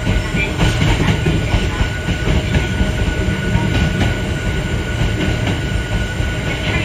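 Hakone Tozan Railway Moha 1 electric railcar running on the line, a steady rumble of wheels on rail with a faint, steady high-pitched whine above it.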